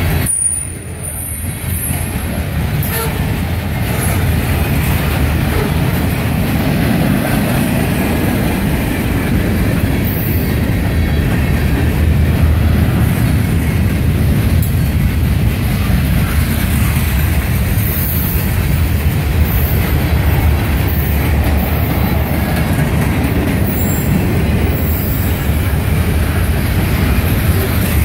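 Freight cars of a CSX manifest train rolling past close by: a steady rumble of steel wheels on rail, with brief high-pitched wheel squeals now and then.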